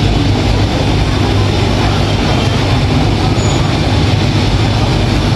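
Steady, loud low rumble with the busy noise of an open market around it.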